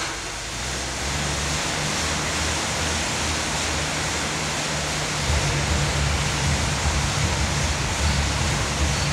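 Air bike's fan rushing as it is pedalled hard, a steady whooshing that grows louder and pulses about halfway through.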